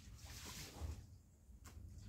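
Faint splashing and sloshing of water in a basin as clothes are handled, swelling briefly about half a second in, with a sharp click near the end.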